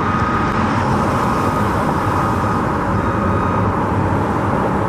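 Steady traffic noise from a nearby freeway, an even wash of road noise with no single vehicle standing out, and a faint steady tone running through it.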